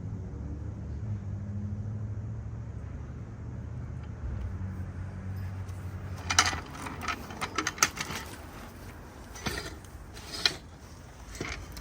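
A low steady hum for about the first half, then a series of sharp metallic clicks and clanks from tools working on the car's brake parts, a few of them louder knocks.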